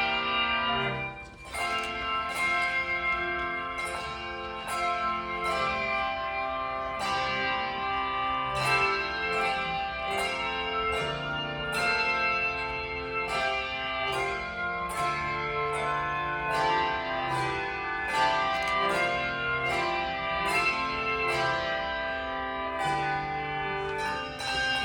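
Handbells playing a tune, several notes struck together as chords at a steady pace, each note ringing on under the next.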